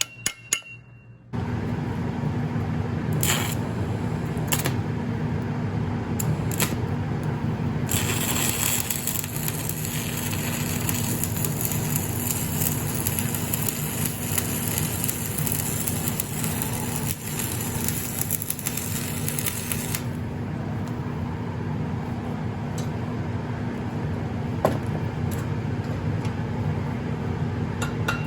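Welding machine humming steadily from about a second in, with a few sharp clicks. From about 8 s to 20 s the hiss and crackle of the arc as a piece of steel is tack-welded in place.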